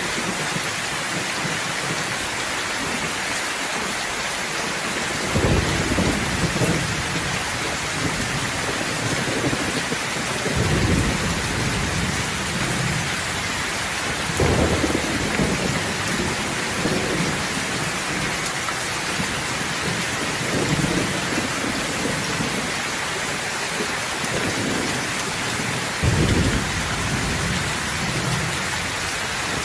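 Steady heavy rain falling, with rolls of thunder rumbling in four times, each lasting a few seconds.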